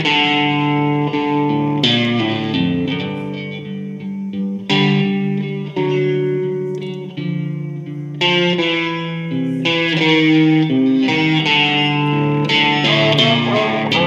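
Electric guitar, a Fender Stratocaster-style, played through an amplifier: a blues passage of held notes and changing chords.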